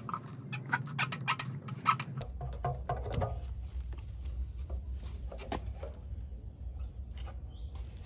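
Pliers clicking and scraping on a rusted nut, a quick run of sharp metal clicks at first, then scattered lighter ticks. A steady low hum comes in about two seconds in.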